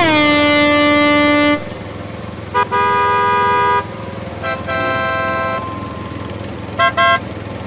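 Cartoon vehicle horn sound effects honking several times at different pitches: a long honk that slides down in pitch at its start, two more long honks each led by a short blip, and two quick toots near the end, over a steady low running noise.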